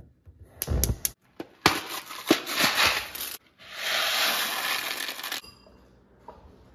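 A gas stove knob turned with a few sharp igniter clicks, then dry macaroni rattling out of a cardboard box and pouring into a pot, with a steady hiss of pouring lasting a couple of seconds.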